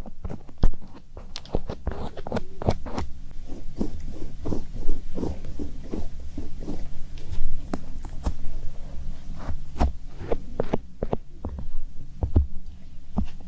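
Close-miked ASMR trigger sounds: irregular soft taps and clicks, several a second, over a low steady hum.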